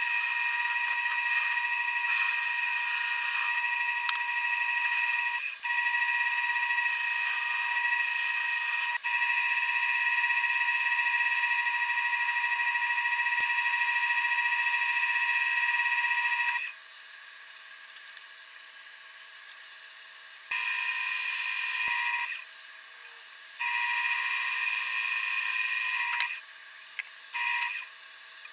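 A turning tool cutting a black cherry bowl on a running wood lathe: a steady high whine with a hiss of shavings. The cutting runs unbroken for about the first sixteen seconds, then stops and comes back in several shorter runs.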